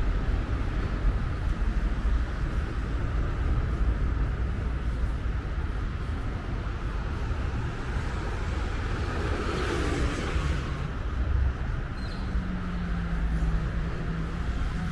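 Street traffic noise beside a city road: a steady low rumble and hiss, with one vehicle passing by about ten seconds in. A steady low hum joins about twelve seconds in.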